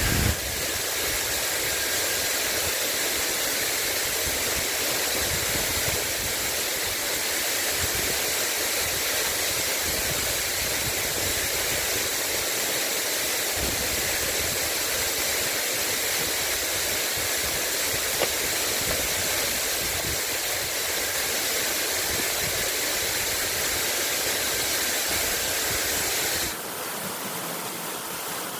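Steady rain falling, an even hiss. Near the end it abruptly becomes a little quieter and thinner.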